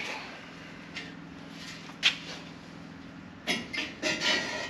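A steady low hum with a few sharp knocks, the loudest about two seconds in, then a flurry of knocks and scraping near the end, as a long steel bar levers the corner of an Endura urethane bumper back into line.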